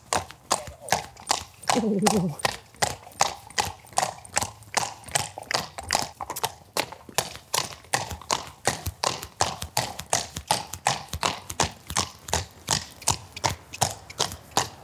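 Hoofbeats of a large horse trotting on paving stones, a steady clip-clop of about three to four strikes a second, as it is trotted in hand for a lameness check after a nerve block. A short falling call sounds about two seconds in.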